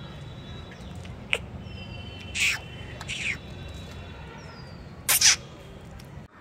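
Birds calling: thin falling whistles and chirps, and three loud harsh calls about two and a half, three and five seconds in, over a steady low background rumble.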